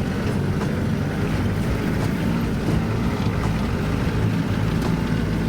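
Steady engine rumble and road noise of a moving vehicle, with some wind noise on the microphone.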